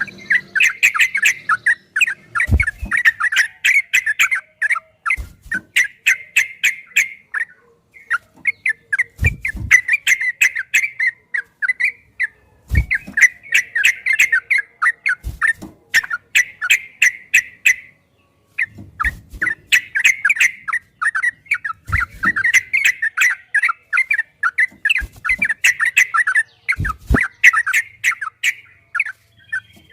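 Yellow-vented bulbul (trucukan) singing long runs of rapid, chattering notes in bursts of a few seconds with brief pauses. A few low thumps are heard along the way.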